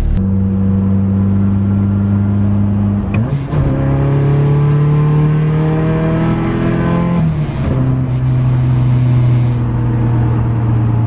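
Nissan 240SX (S14) engine heard from inside the cabin while driving. The revs climb under acceleration, dropping sharply at a gear shift about three seconds in and again about seven and a half seconds in.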